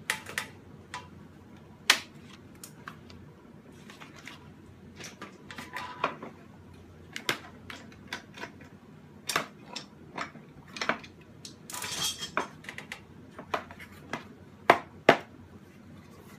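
Irregular clicks, knocks and clanks as quick-release bar clamps are undone and a wooden mold is pried and tapped apart with a hand tool to free a pressed HDPE block. Two sharp strikes near the end are the loudest.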